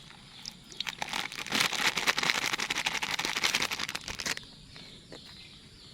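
Galangal sap water being poured into a glass: a splashing trickle that starts about a second in and runs for about three and a half seconds before stopping.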